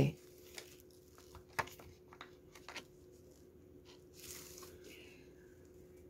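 Faint rustling and a few light taps of paper art postcards being handled and shifted, over a faint steady hum.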